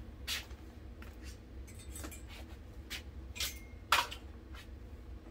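A few sharp clicks and light metallic clinks from hands working at a portable generator's control panel and fittings, the loudest about four seconds in, over a steady low hum. The generator engine is not running.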